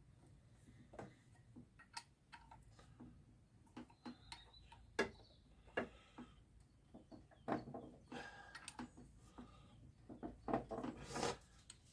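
Tools and pressure-washer parts being handled on a bench: scattered, irregular light clicks and knocks.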